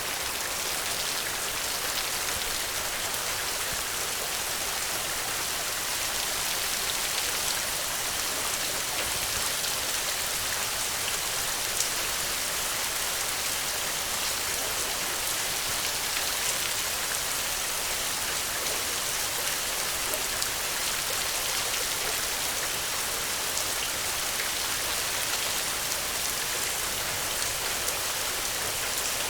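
Steady rain falling on the ground, an even hiss with many small drop ticks and a few louder single drops.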